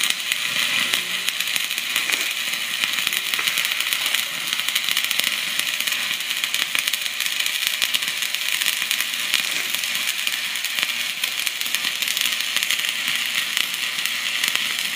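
Stick (arc) welding with a 6013 electrode: the arc crackles and sizzles steadily as a build-up bead is laid on a steel snowmobile ski wear bar.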